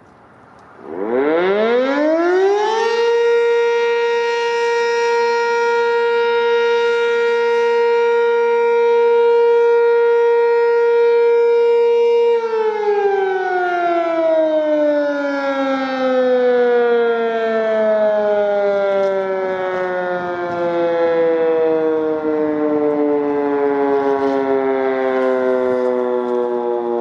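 Sentry 10V electromechanical siren winding up within about two seconds to a steady single tone, holding it for about ten seconds, then winding down with slowly falling pitch: its daily noon test blast.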